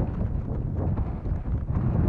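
Wind buffeting the microphone: an uneven, gusting low rumble.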